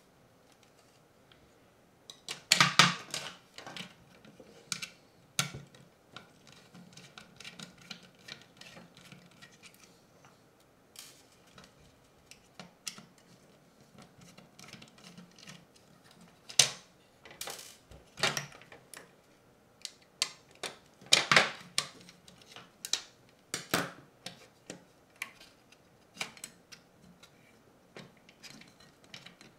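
Hard plastic parts of a PO-80 Record Factory kit clicking, tapping and knocking as they are handled, fitted together and screwed in place. The clicks come irregularly, with several louder clattering clusters along the way.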